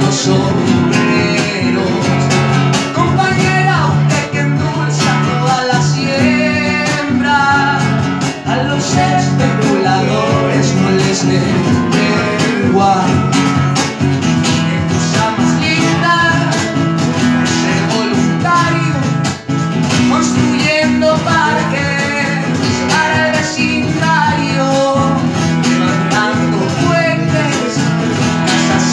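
Live acoustic guitar strummed with a cajón keeping the beat, and a voice singing over them.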